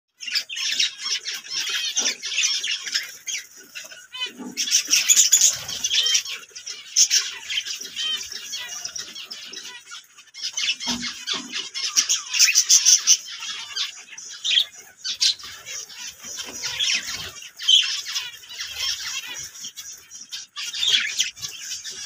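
A colony of zebra finches calling over one another, a dense, continuous chatter of many short high calls that swells louder in stretches.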